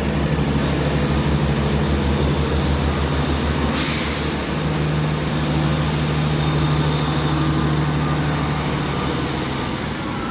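Class 166 diesel multiple unit's engines running steadily with a low, even pulse as the train gets under way from the platform. A short burst of air hisses about four seconds in.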